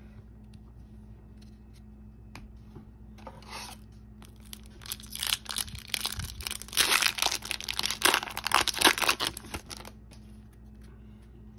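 Foil wrapper of a hockey card pack being torn open and crinkled by hand. There is a brief rustle about three seconds in, then a dense run of crackling from about four and a half seconds to nearly ten seconds.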